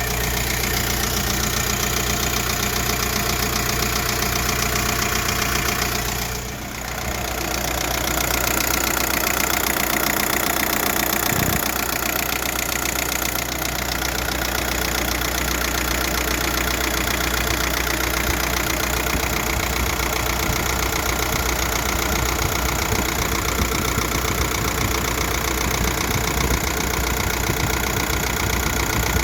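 Volkswagen 1.9 TDI (ASZ) four-cylinder diesel engine running steadily at idle, with a weird noise from the driver's side of the engine that the owner cannot trace, heard through the driver's side wheel well. The level dips briefly about six and a half seconds in.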